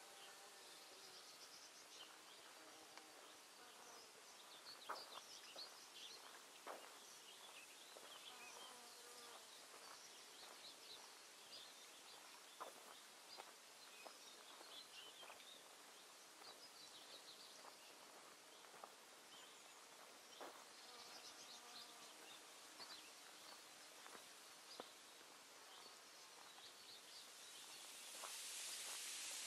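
Near silence: faint background with scattered soft high chirps and a few light taps, and a hiss that rises near the end.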